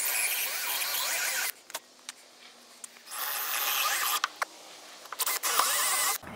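Cordless drill boring into wood in three bursts of a second or so each, with short pauses between.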